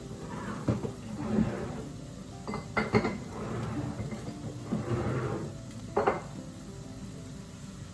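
Dishes and utensils clinking and clattering at a kitchen counter, with several sharp clacks, over a faint sizzle of tomatoes frying in a pan.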